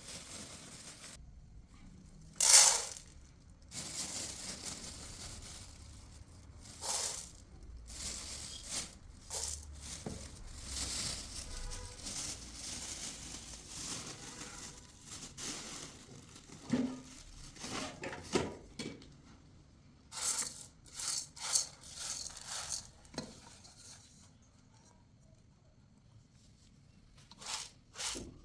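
Irregular handling noises: rustling and crinkling with short scrapes and knocks. The loudest is a sharp burst about two and a half seconds in, and there is a quieter lull shortly before the end.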